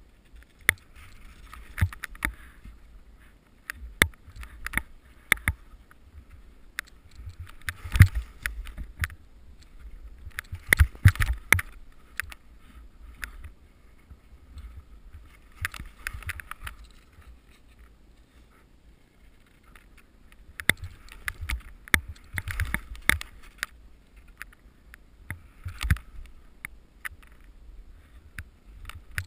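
Skis hissing through deep powder snow in patches, with irregular sharp knocks and clatter and a low rumble of wind and vibration on a head-mounted camera.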